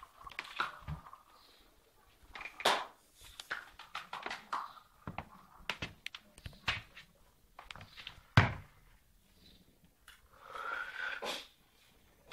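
Irregular clicks and knocks, with one louder thump about eight seconds in and a short noisy burst near the end.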